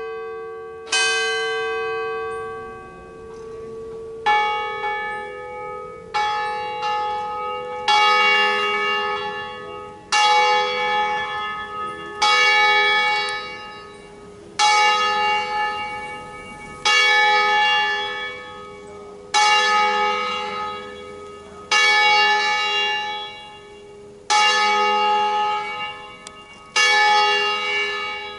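Smallest bell of a five-bell peal, a bronze bell cast by Roberto Mazzola, swung full circle on its wheel (Italian 'distesa' ringing), its clapper striking about every two seconds. Each stroke rings out with many overtones and is still sounding when the next one lands.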